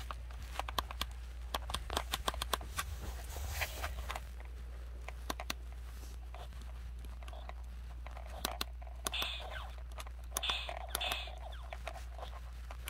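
Quick, irregular clicking of the small plastic buttons on a keychain-sized Space Invaders mini arcade machine being played, the clicks thickest in the first half, then a few short softer sounds.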